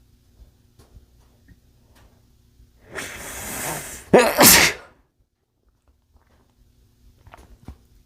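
A man sneezes once into a bandana: a drawn-in breath builds for about a second, then comes one sharp, loud sneeze.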